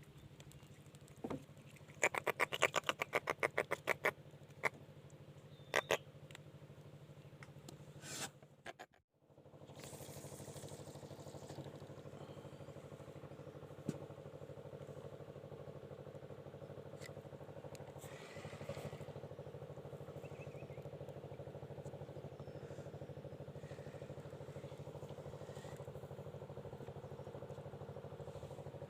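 A rapid run of ticking for about two seconds, then a few single clicks; after a short break, a steady motor hum.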